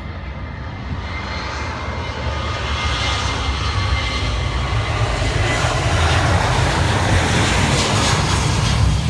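Boeing 737 jet airliner's engines at takeoff power during the takeoff roll, heard from across the airfield: a steady jet noise with a deep rumble and a faint high whine, growing steadily louder.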